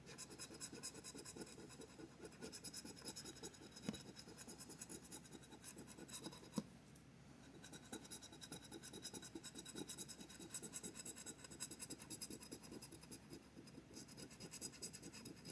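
A worn scratcher scraping the coating off a scratch-off lottery ticket in quick, faint, repeated strokes, with a short pause about halfway through.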